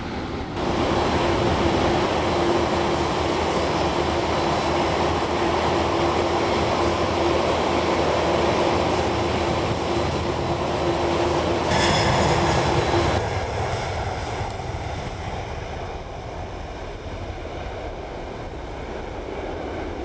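Jet airliner engines running at high power: a loud, steady roar with a steady hum through it. It starts abruptly about half a second in and drops away sharply about 13 seconds in, leaving a quieter rumble.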